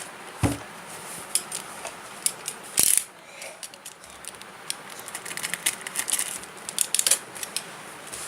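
Clicks, taps and crinkles of a hot air gun's box and packaging being handled and opened. There is a thump about half a second in, a louder clatter near the three-second mark, and a quick run of small clicks in the second half.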